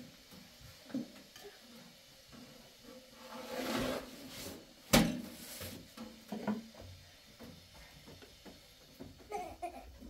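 Scattered small knocks and handling noises, with one sharp knock about five seconds in, the loudest sound.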